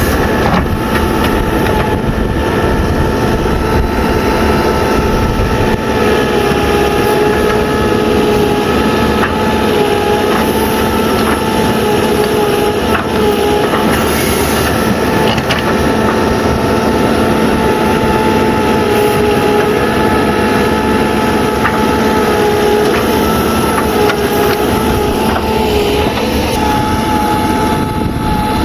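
Backhoe loader's diesel engine running hard while digging and loading mud, a loud steady drone with a high whine that wavers slightly in pitch.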